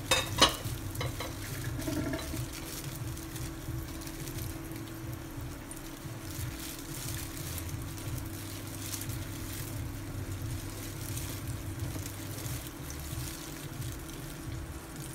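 Steady hum of a switched-on induction cooktop, its coil and cooling fan running, under a faint hiss. A plastic-gloved hand works flour on a porcelain plate, with a few sharp clicks about half a second in.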